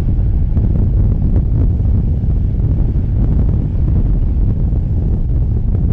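Wind buffeting the microphone outdoors: a loud, uneven low rumble with no clear source behind it.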